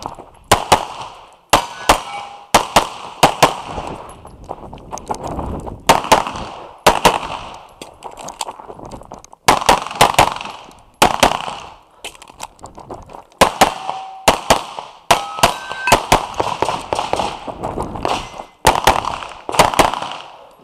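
A string of pistol shots fired mostly in quick pairs, with short pauses between groups as the shooter moves between targets. Steel target plates ring briefly after some of the hits.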